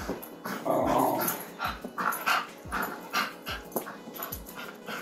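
Small dog whining and yipping, eager to join in, over a steady low thud a little more than once a second.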